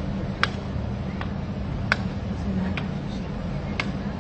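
A series of sharp clicks, about one a second, over a steady low outdoor hum.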